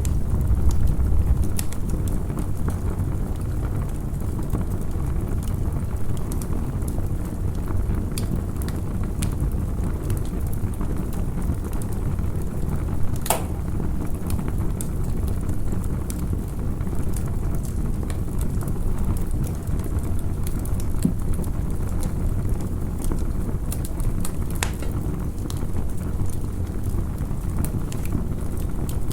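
Campfire crackling: irregular sharp pops and snaps, one louder pop about halfway through, over a steady low rumble.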